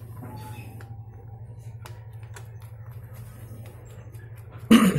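Honda Megapro-based 228 cc single-cylinder engine idling steadily with an even fast beat, while small metal clicks come from the exhaust valve cap being fitted back on the cylinder head. A brief louder sound breaks in near the end.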